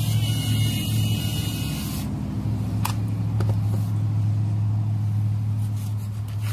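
A steady low engine hum, like a motor vehicle idling, holding one pitch throughout. A high hiss accompanies it for the first two seconds and then cuts off, and a couple of light clicks come about three seconds in.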